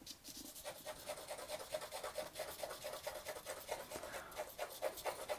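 Charcoal stick scratching across drawing paper in many quick, short strokes.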